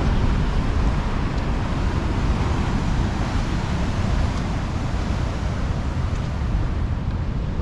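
Wind buffeting the microphone over the steady wash of a rough sea's surf breaking against the rocky shore.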